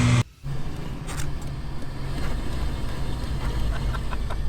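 Subaru Outback with a 2.2-litre EJ22 flat-four, driving: a steady low engine and road rumble. It follows a short, abrupt cut from the engine idling with its cooling fan running.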